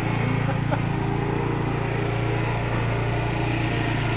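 Riding lawn mower engine running at a steady speed.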